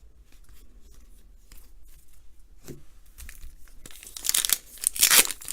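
Trading cards and crinkly wrapping being handled: a few faint taps, then loud crinkling and rustling from about four seconds in.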